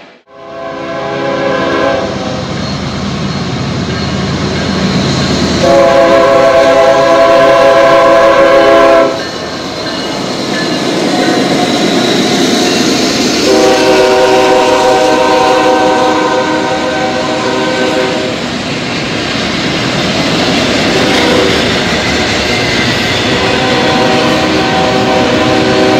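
Norfolk Southern diesel locomotive's chord air horn sounding four blasts as it leads a freight train past: a short one at the start, two long ones, and another beginning near the end. Between the blasts the locomotive's engine and the rumble and clatter of wheels on rail keep up a steady loud noise.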